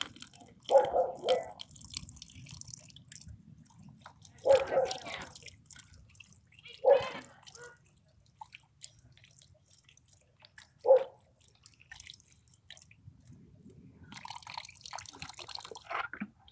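Water poured from a plastic water-cooler jug into a dog's drinking bowl, coming in several short splashing bursts a few seconds apart.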